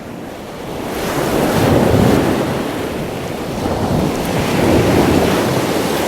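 Wind buffeting the microphone: a loud rushing noise with uneven low rumble that swells about a second in and keeps going.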